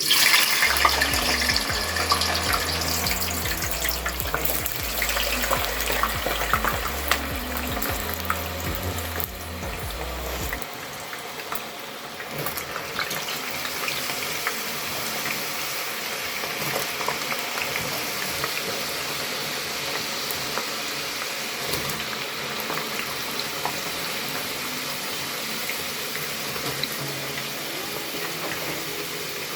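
Potato chips going into hot oil: the oil sizzles loudly at once, then eases after about ten seconds into a steady frying hiss.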